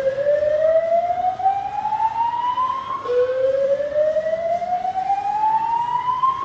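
Hotel fire-alarm system's alert tone, a loud slow whoop: a tone rising steadily in pitch over about three and a half seconds, starting again about three seconds in. It is the building's early alert signal, sounded while the cause is investigated, before any evacuation.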